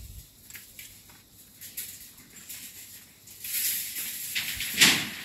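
Boots stepping on a reinforcing-steel (rebar) mat: light scattered clicks and scrapes of steel, with a louder knock near the end.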